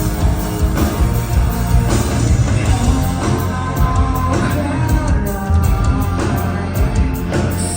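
Live rock band playing a loud song with singing, recorded from the audience. The full band comes back in right at the start after a brief break.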